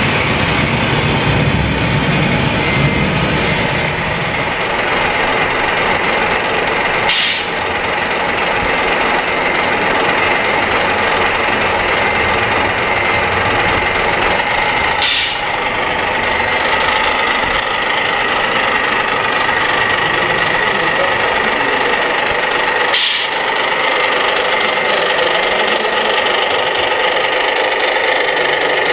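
Engine sound of a radio-controlled MAN TGA scale heavy-haulage truck: a steady, even running drone as it drives slowly.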